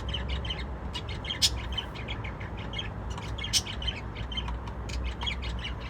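A group of small cage birds chirping busily, many short overlapping calls, with a louder sharp call about a second and a half in and another about three and a half seconds in. A steady low hum runs underneath.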